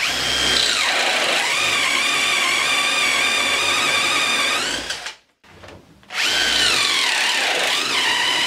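Cordless drill driving a Forstner bit into wood: a steady motor whine that drops in pitch as the bit bites in about a second in, holds while it cuts, and rises again as the bit comes free. It stops before the five-second mark, then starts again about a second later on a second hole with the same drop under load.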